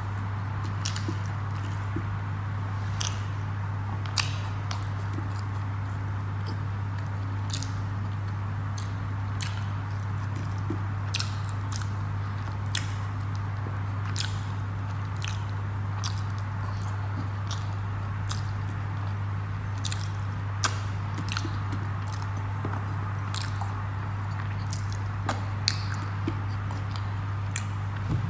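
Close-up eating by hand: a person chewing soft food (chana dal and paneer curry) with wet mouth sounds, and fingers squishing food on a plate. Many small irregular clicks run over a steady low hum.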